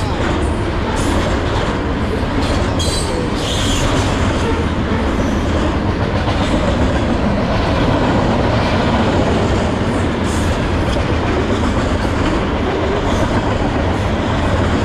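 A freight train's high-sided gondola cars rolling past at speed: a steady, loud rumble of steel wheels on rail, broken by a few brief sharp high squeals or clanks about three seconds in and again near ten seconds.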